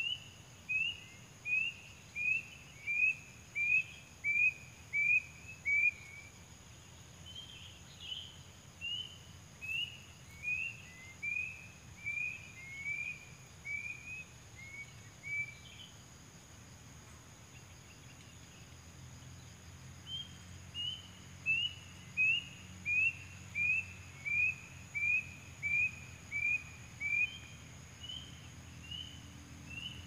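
A wild kedasi cuckoo calling: three runs of short, down-slurred whistles at about two a second, each run stepping down in pitch. The first run grows louder and stops about six seconds in. A quieter run follows, then a pause of a few seconds, and another run starts about twenty seconds in.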